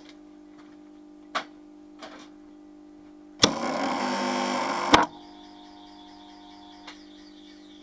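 A static phase converter hums steadily. A click comes about a second and a half in. About three and a half seconds in, a three-phase lathe motor starts through it with a loud buzzing run-up lasting about a second and a half, cut off by a sharp clack as the current-sensing start contactor drops out. The motor then runs on with a quieter whine over the hum.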